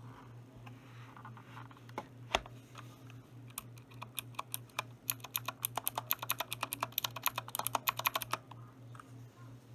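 Typing on a mechanical keyboard: a few scattered key clicks, then a quick, dense run of keystrokes for about five seconds that stops near the end.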